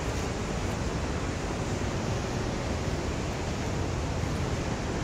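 Steady rushing of falling water from the creek and falls in the gorge.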